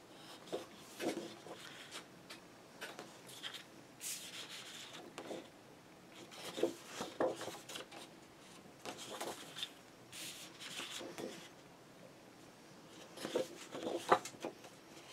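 Large 12x12 double-sided scrapbook paper sheets rustling and sliding as they are turned over and laid down, in short scattered swishes and crackles.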